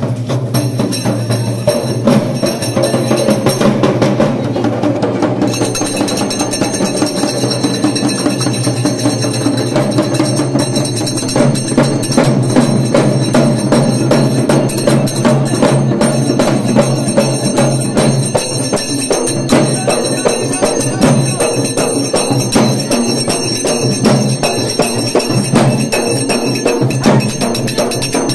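Fast, continuous drumming on frame drums and a barrel drum by a procession drum band, the strikes coming thick and even throughout.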